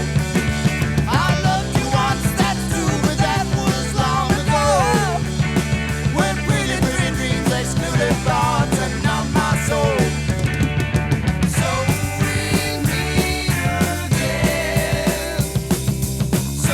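Early-1970s Danish progressive rock band playing an instrumental passage with guitars, bass guitar and drums. A lead melody bends and wavers in pitch over the first ten seconds, and the arrangement changes about twelve seconds in.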